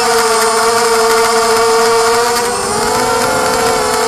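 Small quadcopter's four DYS BE1806 brushless motors spinning 5045 propellers, a steady buzzing whine. Its pitch sags about two and a half seconds in and then rises again as the throttle changes.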